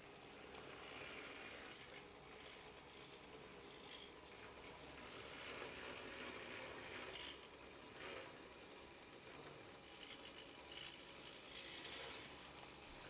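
Tiny electric drive motors and gears of 1/87 scale radio-controlled trucks whirring faintly, with a few brief scratchy rustles as the models move over the miniature terrain.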